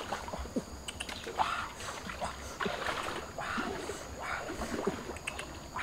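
Water splashing in irregular bursts as a person wades through shallow flood water and pushes a large metal basin along the surface.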